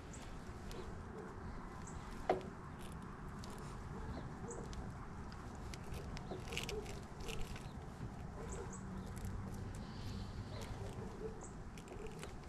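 Faint scraping and small scattered clicks of a hand tool cutting around and working off the insulation of a heavier-gauge electrical wire, with one sharper click about two seconds in.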